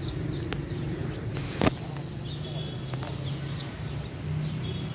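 Outdoor ambience: a steady low hum with faint bird chirps, and one sharp click or knock about a second and a half in.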